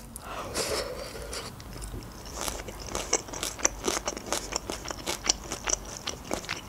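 Shredded red cabbage salad being chewed close to the microphone: a run of crisp, irregular crunches.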